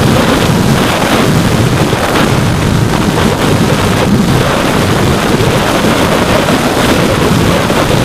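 Steady, loud wind rush over the microphone of a small keychain camera riding on a radio-controlled FPV plane in flight.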